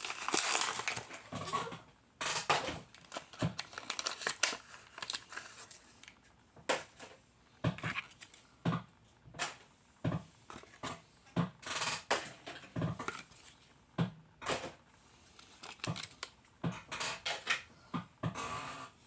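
Packaging crinkling and crackling, with irregular clicks and taps, as diecast model cars are unboxed and handled.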